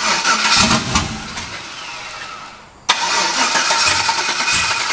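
Race pickup's engine starting and running, its speed and level sagging over the first couple of seconds as it struggles to hold idle with no idle air control on its drive-by-wire throttle; about three seconds in it is suddenly running loud again and keeps going steadily.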